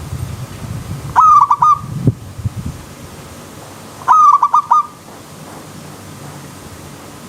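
Zebra dove (perkutut) cooing: two phrases about three seconds apart, each a rising opening note followed by a quick run of four short coos. Under them, a low steady rush of flowing stream water.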